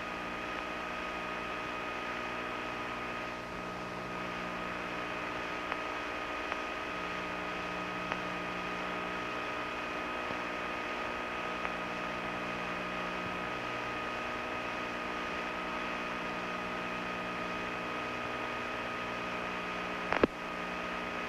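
Steady machinery hum and hiss of the Skylab workshop cabin, with several high steady whining tones, typical of the station's ventilation fans and equipment running. A sharp click about a second before the end.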